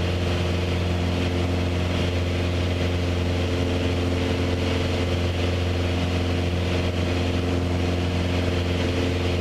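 Steady drone of a light aircraft's piston engine heard from inside the cockpit in cruise-climb, a constant low hum that does not change in pitch.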